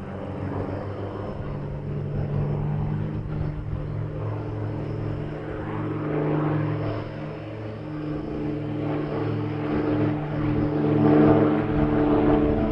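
Piston engines and propellers of three aerobatic biplanes flying in formation overhead: a steady drone made of several overlapping engine tones, growing louder about three-quarters of the way through.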